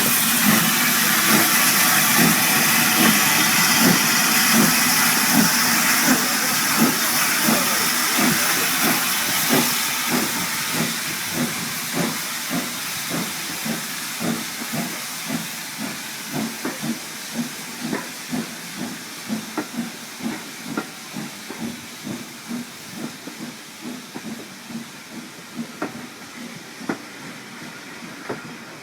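Steam locomotive hissing as it moves away, with its wheels clicking over the rail joints a little under twice a second. The sound fades steadily.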